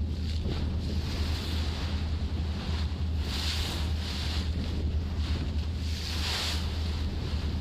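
Sea waves washing, with wind buffeting the microphone as a steady low rumble underneath. The wash swells twice, about three and a half and six seconds in.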